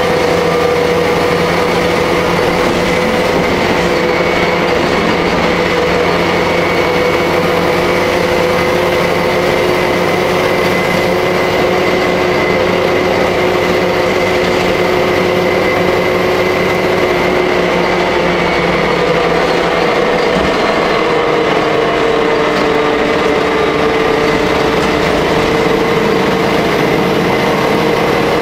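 Jelcz L100 city bus heard from inside the passenger cabin while under way: a steady engine and drivetrain drone with a whine over the road rumble. The lowest part of the drone shifts about two-thirds of the way through.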